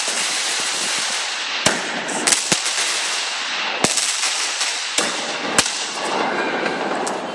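Fireworks and firecrackers going off: a constant hissing crackle with a handful of sharp bangs scattered through it.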